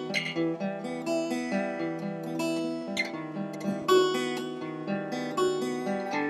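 Acoustic guitar music: plucked notes ringing out one after another, with an occasional strum.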